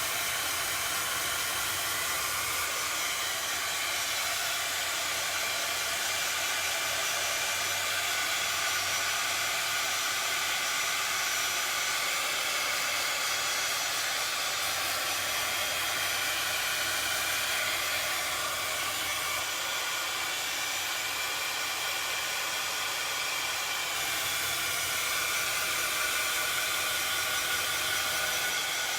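Heat tool running continuously, a steady blowing hiss, drying fresh chalk paint.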